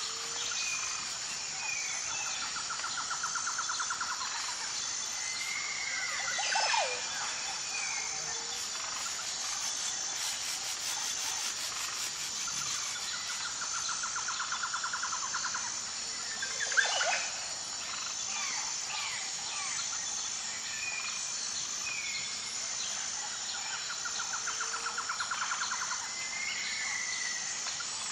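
Bird and insect ambience: assorted bird chirps, whistled calls and falling sweeps over a steady high insect trill. The same sequence of calls repeats about every eleven seconds.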